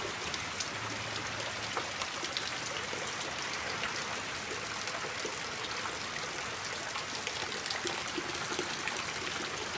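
Heavy rain on a corrugated patio roof: a steady hiss with many sharp drop ticks scattered through it.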